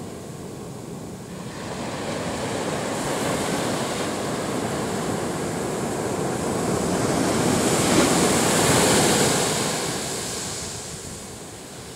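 Ocean waves breaking and washing up a sandy beach. The rush of surf swells from about a second and a half in, is loudest around eight to nine seconds, then fades away near the end.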